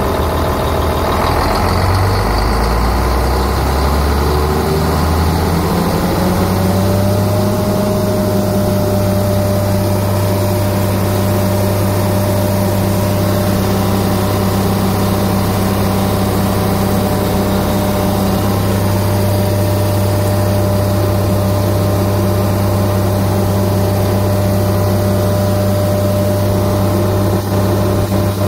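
Engine of a Hwaseong DW-3060 shredder running. A few seconds in, its pitch rises as it speeds up, then it settles into a steady, even run.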